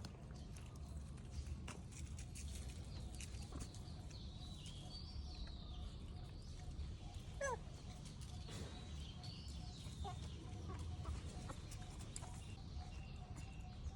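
Outdoor ambience with a steady low rumble and scattered clicks, broken by several short, high, squeaky animal calls, the loudest a brief wavering call about halfway through.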